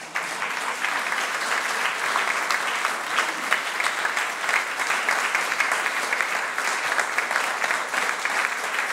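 An audience applauding steadily: many people clapping at once in a dense, even stream of claps that keeps up without a break.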